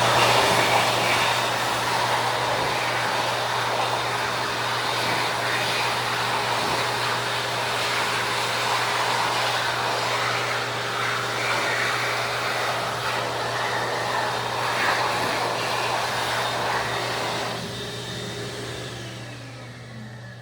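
Xlerator high-speed hand dryer blowing at full speed with a steady loud rush of air. About seventeen seconds in it shuts off and its motor winds down with a falling whine.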